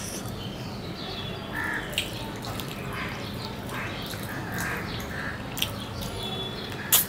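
Two people eating rice and curry with their fingers: squelching of rice being mixed by hand, chewing and lip smacks, with a few sharp clicks, the loudest near the end.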